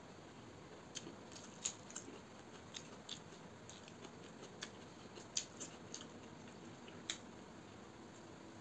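Close-miked eating by hand: scattered sharp, wet clicks and smacks from chewing and from fingers mixing rice and chicken curry on a steel plate, about a dozen at irregular intervals.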